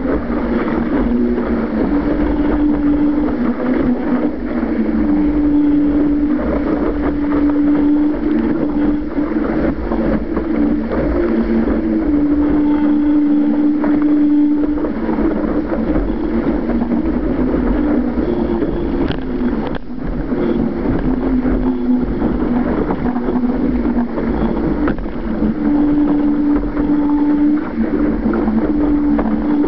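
Wind buffeting the microphone and water rushing and spraying past the hull of a Laser dinghy sailing at speed. A steady hum runs underneath, stepping back and forth between two close pitches every second or two.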